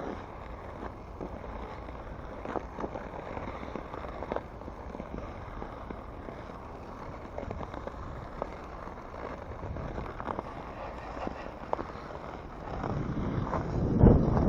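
Ice skate blades scraping and clicking on lake ice as the skaters glide, over a steady hiss. Near the end wind buffets the microphone, rising to the loudest part.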